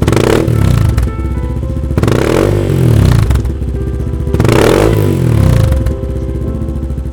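2008 Yamaha XT250's single-cylinder four-stroke engine revved three times, each blip rising and falling back to idle, about two seconds apart.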